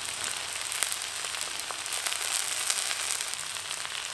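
Scallion pancake (pajeon) frying in a cast iron skillet on low heat: a steady sizzling hiss with scattered small crackles.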